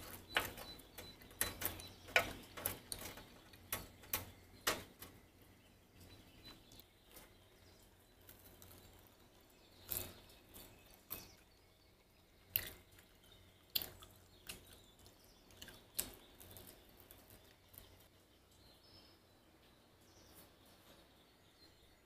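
Metal tongs clicking and tapping against a wire grill rack as skewers are turned and lifted: a quick run of sharp clicks at first, then single clicks every second or two, with a faint steady background between them.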